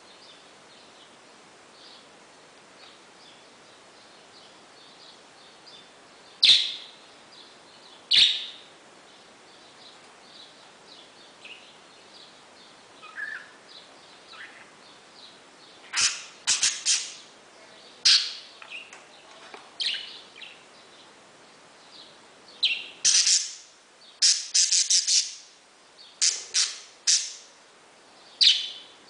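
Pet parakeet calling: soft twittering chatter broken by loud, sharp chirps, at first singly, then in quick runs through the second half.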